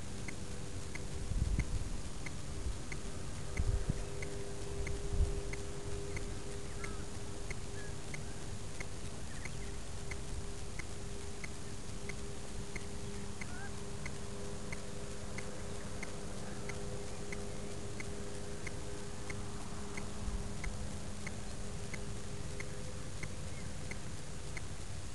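Steady low buzzing hum with a faint tick repeating about one and a half times a second, picked up by a model rocket's onboard camera lying in grass. A few soft low thumps of wind on the microphone come in the first few seconds.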